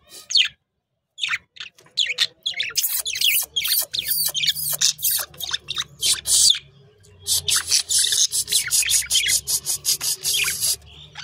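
Budgerigars chattering: rapid, scratchy high-pitched chirps and squeaks. There is a short pause about half a second in.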